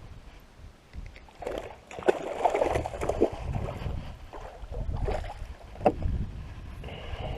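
Water splashing and irregular knocks against a small fishing boat, with a few sharp thumps.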